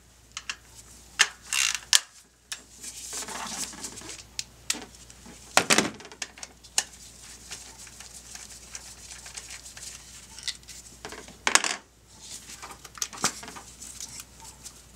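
Metal hand tools clinking and clattering: a ratchet with a 10 mm socket and extension working the ignition coil bolts loose, with scattered sharp metallic knocks, the loudest twice, about halfway through and near the end.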